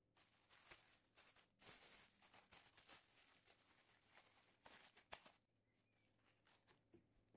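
Near silence with faint scattered taps, clicks and rustles of food and utensils being handled, a couple of sharper taps about a second and a half in and around five seconds in.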